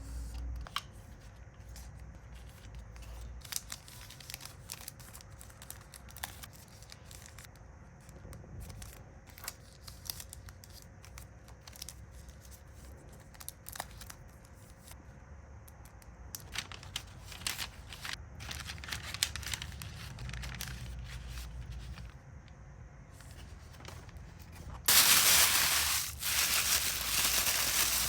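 Hand-packing sounds: small clicks, taps and crinkles of plastic packaging being handled, then a loud, sustained tearing sound for the last few seconds.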